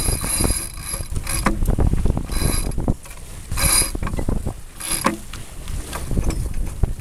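Norsea 27 sailboat's deck hardware (sheet blocks and winch) squeaking under load in four short bursts, the first lasting about a second, over wind and water rushing along the hull.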